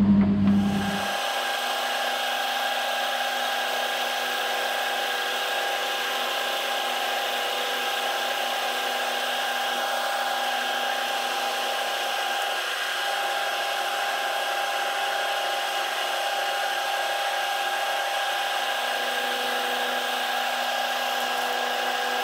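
Milling machine running a 60-degree dovetail cutter through a steel blank, taking a light cut to form ratchet-wheel teeth. The sound is a steady cutting noise with a constant whine.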